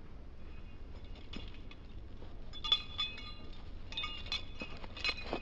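Faint, light metallic clinks with a short ring, several times in the second half and irregularly spaced.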